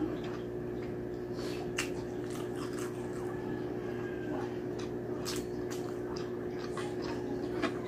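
Close-miked chewing and mouth sounds of a person eating rice and soft braised pork: scattered wet clicks and smacks over a steady low hum.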